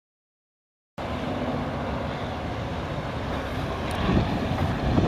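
Outdoor ambient noise that starts abruptly about a second in: a steady rumble of road traffic, with wind buffeting the microphone and growing gustier and louder about three seconds later.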